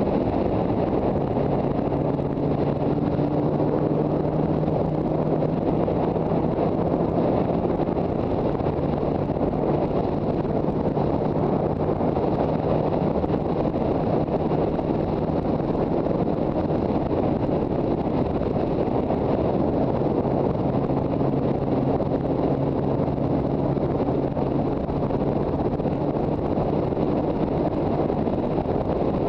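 Steady wind noise buffeting the microphone on a moving Yamaha TZR250 two-stroke motorcycle, with the engine's note running faintly and evenly underneath at a constant cruising speed.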